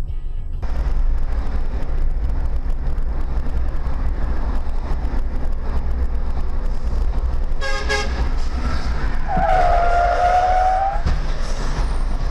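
Steady road-traffic rumble with car horns: a brief toot about eight seconds in, then a longer honk lasting about a second and a half.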